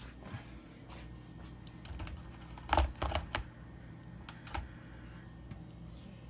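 Light clicks and knocks from handling stripped copper wire on a scale, with a loud cluster about three seconds in and two smaller clicks soon after.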